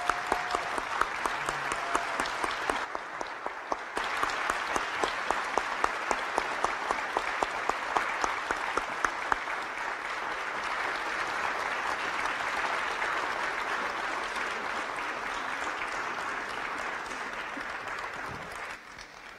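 Audience applauding: dense, steady clapping that thins a little near the end and then cuts off abruptly.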